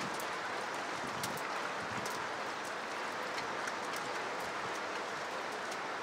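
Steady rain falling, a continuous even hiss with scattered crisp drop ticks.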